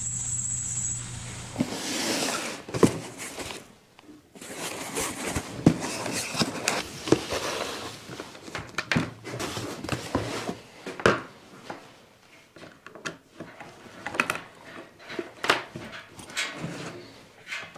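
A metal lathe's motor hums steadily for the first second and a half, then stops abruptly. After that come scattered clicks, knocks and rustling from objects being handled and set down on a wooden table while an amber LED beacon is unboxed.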